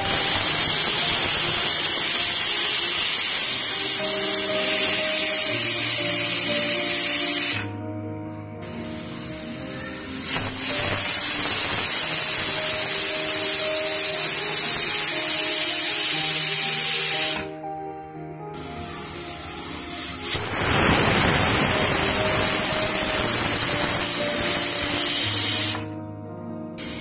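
Pressure cooker whistling: steam hisses out past the weighted whistle in three long blasts of about six to seven seconds each, with pauses of two to three seconds between them.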